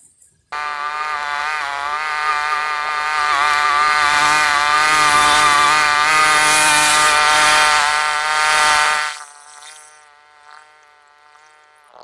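Small petrol engine of a grass-cutting machine running at high revs while mowing weeds. Its whine wavers slightly with load. It starts abruptly about half a second in and cuts off suddenly near nine seconds, leaving a fainter steady tone.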